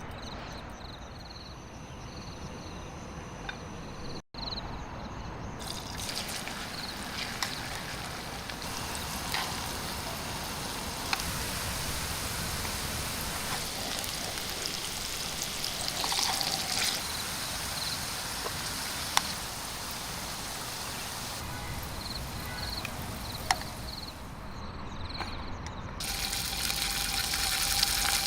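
Water trickling and pouring, with a few light knocks. The sound changes abruptly several times where the footage is cut.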